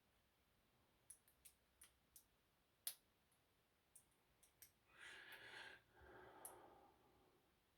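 Faint, sparse clicks of a lock pick and tension wrench working the pins inside a Master Lock 575 padlock, about ten irregular ticks over several seconds. About five seconds in there is a soft rushing noise in two parts.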